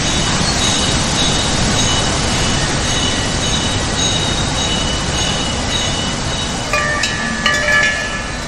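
Z-purlin roll forming machine running as steel strip is pressed through its forming rollers: a steady mechanical rumble with high, thin metallic squeals that come and go. About seven seconds in, the pitch of the running changes and a couple of short knocks stand out.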